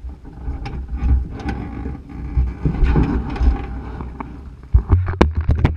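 Off-road vehicle crawling slowly over a rough dirt and rock track: a steady low rumble broken by frequent knocks and clicks from the rig bouncing over the ground, louder near the end.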